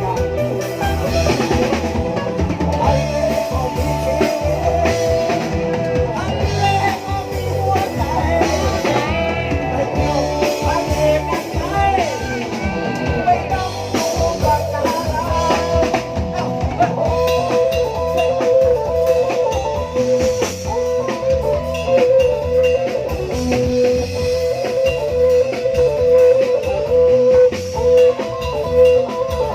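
Thai brass band (trae wong) playing a tune, with held horn-like notes and sliding pitches over a steady drum beat.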